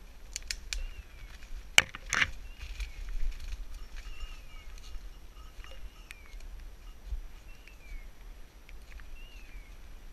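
A dog's beeper collar sounding a short falling chirp every second or two. Footsteps and brushing go through dry leaves and undergrowth, with a sharp snap about two seconds in.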